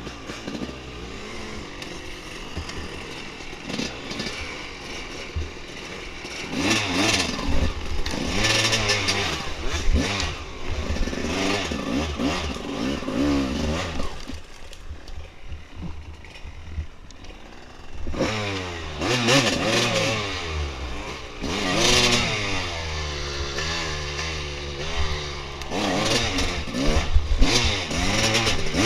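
Dirt bike engine revving up and down in repeated surges as it is ridden along a trail. It eases off for a few seconds midway, and knocks and rattles run through it.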